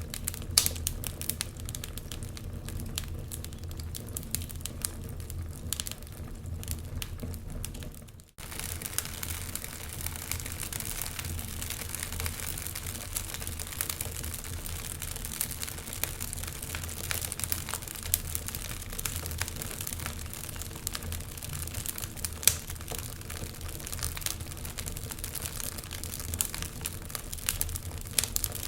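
Wood fire crackling, with irregular sharp pops and snaps over a low steady rumble. The sound cuts out for an instant about eight seconds in, then carries on.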